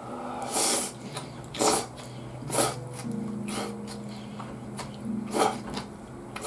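Udon noodles being slurped: four short, sharp slurps, the first three about a second apart and the last near the end.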